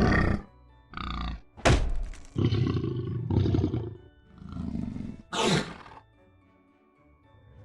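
A large animal giving a run of loud, rough roaring calls, about seven in the first six seconds, after which the calls stop. Soft background music plays under them.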